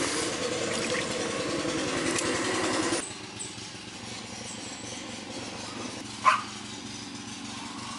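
Steady mechanical hum, like a motor or engine running, that becomes quieter about three seconds in. A single short high squeak comes a little after six seconds.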